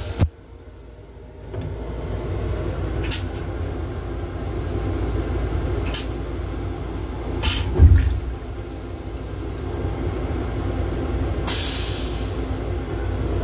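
Steady low mechanical rumble in an LIRR M7 railcar, starting suddenly about a second and a half in. A few short hisses and a loud thump about eight seconds in break over it.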